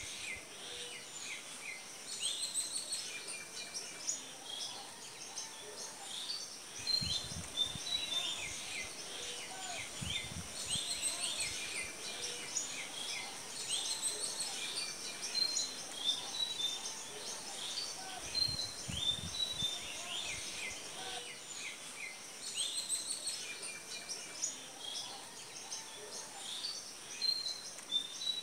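Many small birds chirping and twittering over one another without pause, above a steady thin high-pitched hiss, with a few brief low rumbles.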